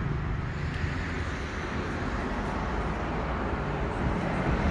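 Steady street traffic: a low rumble and hiss of passing cars, growing a little louder near the end.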